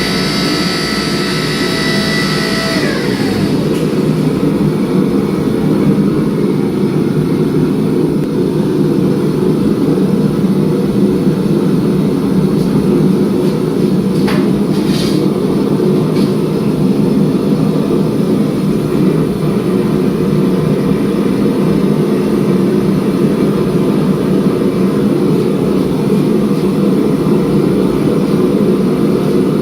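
Steady loud roar of a gas forge burner. In the first few seconds a high machine whine drops in pitch and dies away, and a couple of short clicks come about halfway through.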